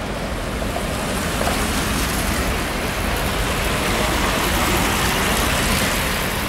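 A pack of track bikes whirring past on the wooden velodrome boards, the tyre noise swelling as the riders come close to a peak about five seconds in, over a general hubbub in the hall.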